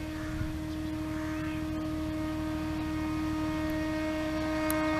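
ZDM 4A narrow-gauge diesel locomotive sounding one long, steady horn note as it approaches, slowly growing louder, over the low rumble of its diesel engine.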